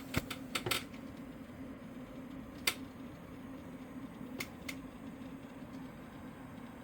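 A fan running with a steady low hum, broken by irregular sharp clicks: a quick cluster of about five in the first second, one more a couple of seconds later, and two close together further on. These are the odd noises the fan is making.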